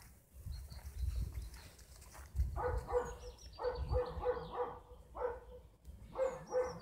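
A puppy making short whimpering yelps, repeated several times a second in runs, with low rumbling underneath.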